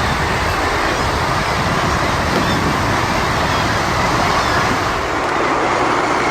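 Steady engine and water noise of a small boat under way.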